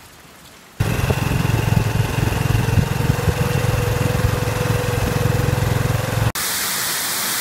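Motorcycle engine running steadily at road speed, with tyre and road noise, starting abruptly about a second in. It cuts off suddenly near the end, giving way to the steady hiss of heavy rain.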